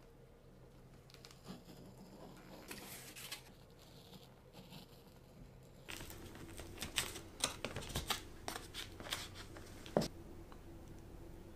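Paper baking mold rustling and crinkling as its sides are unfolded and pressed away from a set slab of nama chocolate, with many short crackles and one sharp tap near the end. Before that, a few faint ticks and scrapes as a knife is run along the edge of the mold.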